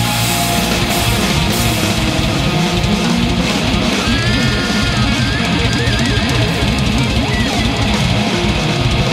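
Loud rock music with electric guitar, with a high wavering lead line about halfway through.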